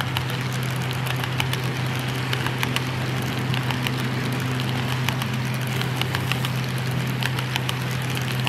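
HO-scale model freight train of covered hopper wagons rolling past, the wheels clicking quickly and irregularly over the rail joints, over a steady low hum.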